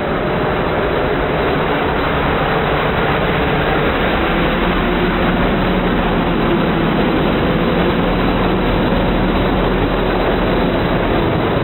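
Opel Monterey's 3.1-litre four-cylinder turbodiesel engine running hard and loud at steady revs, under load as the 4x4 climbs a steep slope.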